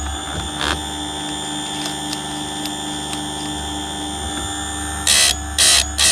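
Chainsaw chain being sharpened: short sharpening strokes stop for about five seconds, leaving a faint steady hum and a single click, then start again near the end at about two strokes a second.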